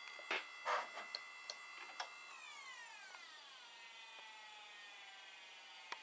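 The iMac G3's 20 GB Maxtor hard drive, which the owner knows has bad bearings, whines steadily, with a few sharp clicks in the first two seconds. About two seconds in, the whine falls in pitch as the drive spins down, a noise the owner calls normal for this machine.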